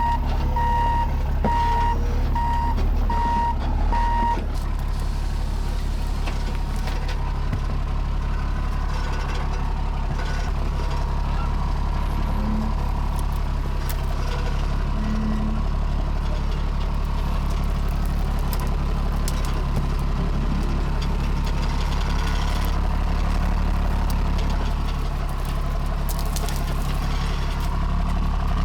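Heavy-duty wrecker's diesel engine running steadily throughout, with a beeping alarm sounding about six evenly spaced beeps over the first four seconds before it stops.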